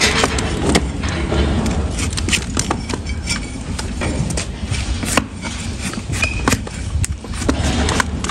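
A wide flat hoof-trimming blade shaving through a donkey's hoof horn against a wooden block: scraping cuts broken by irregular sharp cracks and clicks as slices of horn come away, over a low rumble.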